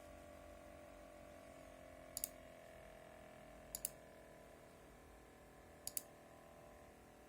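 Three sharp double clicks, each a quick pair, coming about every one and a half to two seconds, over a faint steady hum.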